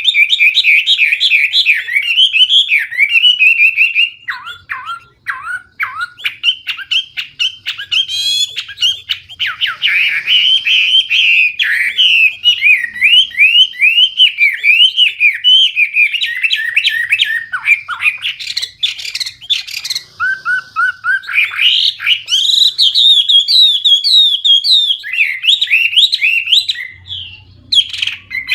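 Hwamei (Chinese hwamei) singing loudly and almost without pause: a rich, varied run of fast rising and falling whistled phrases, full of filler and mimicked notes. The song thins to lower notes briefly about four seconds in and dips for a moment near the end.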